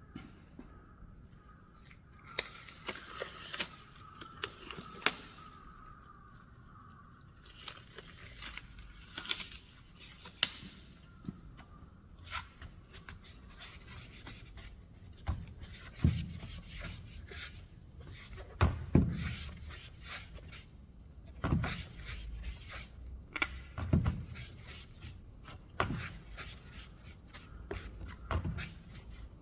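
Wooden parts handled by hand: scattered light taps, clicks and rubbing of wood on wood, with a few deeper knocks in the second half.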